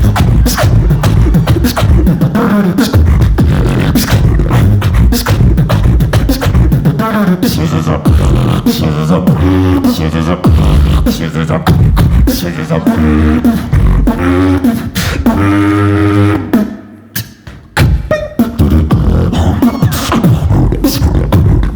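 Human beatbox performance: fast mouth-made kicks, snares and hi-hat clicks over a heavy vocal bass line, with pitched vocal lines woven in through the middle. About three-quarters through the beat drops away for a moment, then comes back in full.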